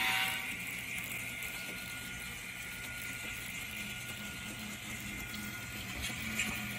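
N scale model passenger train running along the track: a faint, steady hum and whir with a few light ticks.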